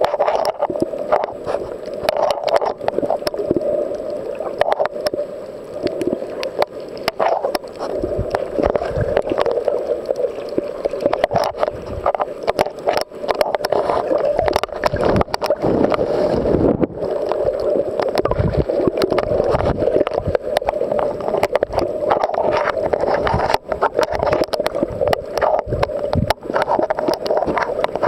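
Muffled water noise heard with the camera underwater: a steady dull wash of moving water with many irregular clicks and crackles, and some deeper surges partway through.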